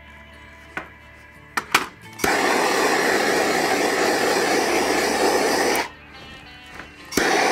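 Handheld gas torch: a few sharp clicks, then the flame burns with a loud, steady hiss for about three and a half seconds, heating a vinyl wrap so that it sets. It stops, then starts again near the end.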